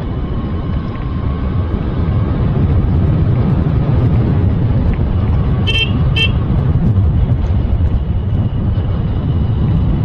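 Motorbike riding along a road, wind rushing over the microphone with the engine running beneath, growing louder about two seconds in. Two short high beeps sound about six seconds in.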